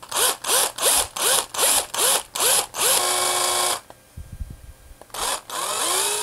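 Cordless drill with a 3/8-inch Forstner bit boring a shallow eye socket into a wooden lure body. It runs in short trigger bursts, about three a second, each one spinning up in pitch, then runs steadily for under a second. After a pause come two more bursts, the last a longer spin-up that stops sharply.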